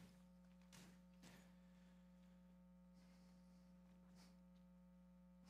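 Near silence: a faint steady electrical hum, with a few soft brief noises in the first second and a half.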